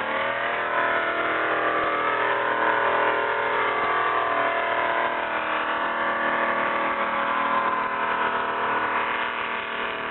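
Pulling tractor's engine running flat out under heavy load while dragging a weight-transfer sledge. Its pitch climbs at the start, then holds high and steady.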